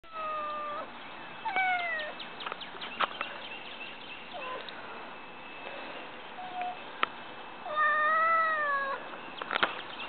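Domestic cat meowing at birds and squirrels seen through a window screen. There are several short meows, each falling in pitch, then one longer meow that rises and falls near the end, with a few sharp clicks in between.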